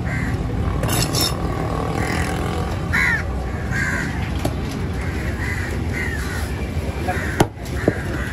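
Crows cawing repeatedly over a steady low rumble, with two sharp knife chops on the wooden cutting board near the end.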